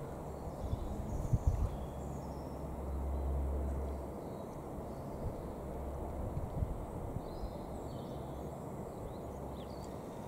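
Steady low rumble of an Antonov An-12BP's four Ivchenko AI-20 turboprop engines, swelling a little a few seconds in. A few low thumps come about a second and a half in.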